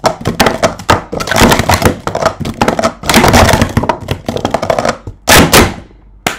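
Speed Stacks plastic sport-stacking cups clattering in a fast run of quick knocks as they are stacked and unstacked in a timed cycle, cups hitting each other and the mat, with the loudest hits near the end.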